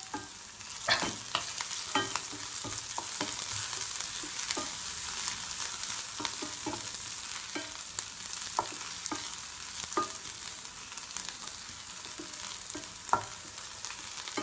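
Sliced onions and crushed green chillies sizzling in hot ghee in a frying pan, stirred with a wooden spatula that knocks and scrapes against the pan now and then in scattered clicks.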